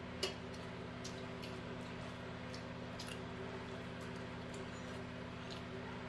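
Quiet eating sounds of people eating rice and fish with their fingers from brass plates: scattered small clicks and soft squishes, the sharpest click about a quarter second in, over a steady low hum in the room.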